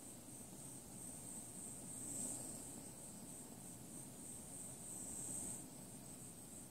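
Butane micro torch burning with a steady hiss, swelling louder about every three seconds as the flame is swept over a PLA print.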